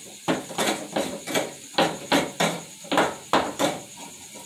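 A coconut shell knocked hard again and again, about ten sharp knocks at two to three a second, stopping a little before the end.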